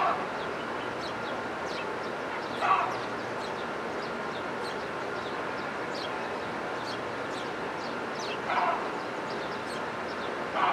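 Small birds chirping, with many short, high notes over a steady background hiss. A few louder, lower calls break in: one at the start, one about three seconds in, and two near the end.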